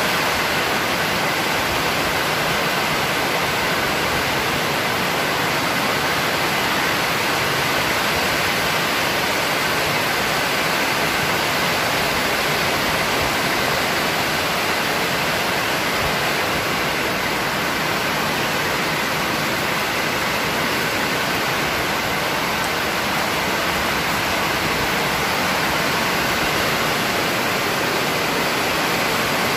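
Heavy rain pouring down in a steady, dense hiss that stays even throughout.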